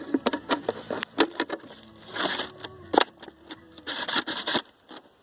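Hands handling and scraping a plastic bottle: a string of sharp clicks and knocks with a few short scraping rustles, dying away near the end.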